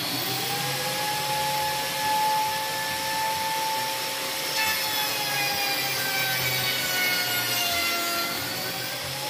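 Biscuit joiner running and cutting slots into white chipboard, a steady motor and blade noise with a high whine. The whine's pitch sags over a few seconds in the second half and picks up again near the end.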